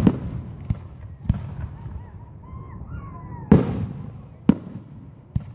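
Aerial fireworks shells bursting overhead: a string of five or six booms, the loudest about three and a half seconds in, each trailing off in an echo.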